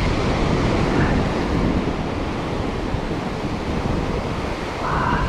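Ocean surf washing up the beach, with wind buffeting the microphone.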